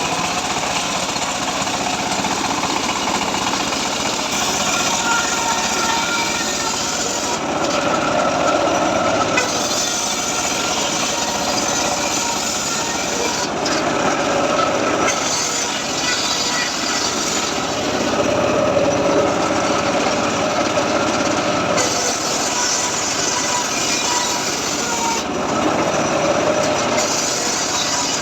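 Homemade circular saw running steadily and cutting teak timber, the sound swelling each time the blade bites into the wood, four times.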